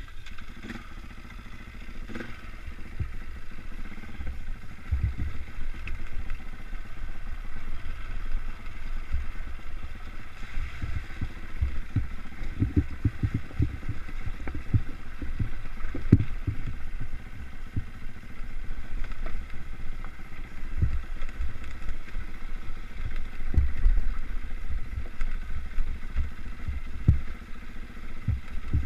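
Dirt bike engine running at a steady, low trail pace, with irregular low thumps and knocks as the bike rides over a rough, stony track.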